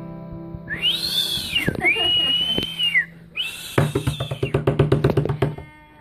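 An acoustic guitar chord rings out and fades, then a person whistles a few high notes that bend up and down. A rapid run of pulses, about eight a second, follows for roughly two seconds.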